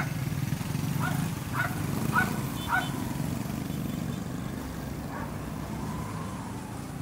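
A small dog barking in short, high yaps, four in quick succession starting about a second in, over a steady low rumble.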